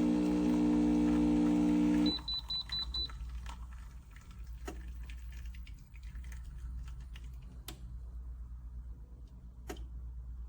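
Electric espresso machine's pump running with a steady hum, which cuts off about two seconds in. Six quick high beeps follow, then a few faint clicks.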